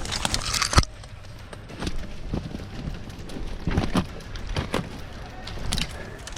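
Footsteps on the ground with rustling of kit, a sharp click just under a second in and irregular thumps after it.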